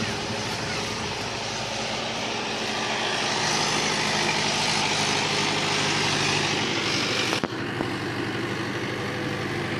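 Mahindra 415 DI tractor's diesel engine running steadily as it drives along a muddy track. It grows louder about three seconds in and eases back about seven seconds in.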